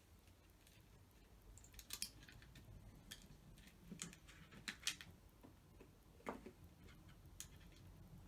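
Faint, scattered clicks and taps of small plastic parts and wire connectors being handled, about one a second.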